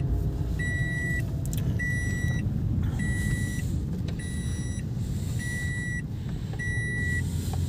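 A car's electronic warning beeper sounding a steady high beep about every 1.2 seconds, six beeps, over the low rumble of a Toyota Aqua hybrid driving.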